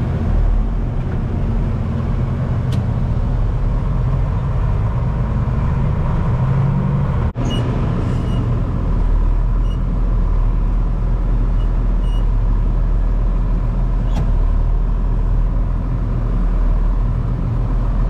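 Farm tractor engine running steadily as it hauls a manure spreader, a continuous low drone. It breaks off for an instant about seven seconds in.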